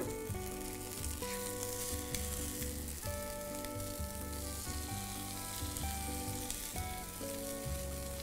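Potato and speck mixture sizzling as it fries in hot oil in a nonstick frying pan, being turned with silicone spatulas. Background music with held notes and a pulsing bass plays underneath.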